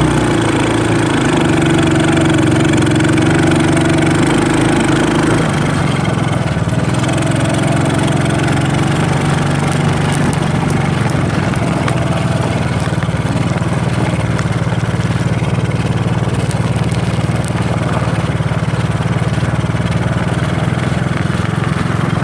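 Engine of a 125cc ATV running steadily, its note dropping to a lower pitch about five seconds in and then holding.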